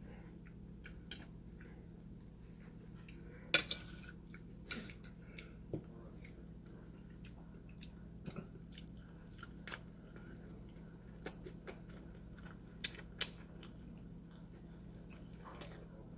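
A person chewing lamb, with scattered small clicks and taps over a low steady hum.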